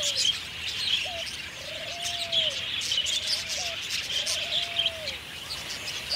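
Bird chorus: many small birds chirping and twittering constantly, with a lower, drawn-out cooing call repeating about once a second.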